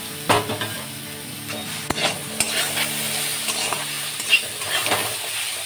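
Metal spatula stirring and scraping chopped tomatoes and fried soya chunks around a kadai, with the oil sizzling underneath. Several sharp scrapes and knocks of the spatula against the pan stand out over the steady sizzle.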